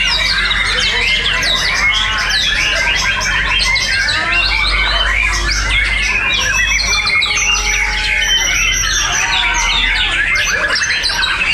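Many caged white-rumped shamas (murai batu) singing over one another in competition: a loud, dense tangle of quick sweeping whistles and rapid trills.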